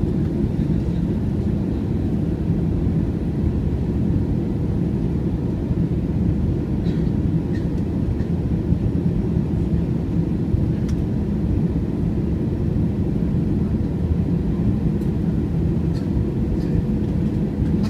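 Steady roar of jet engines and airflow heard inside the cabin of an AirAsia Airbus A320 on its landing approach, with a few faint clicks.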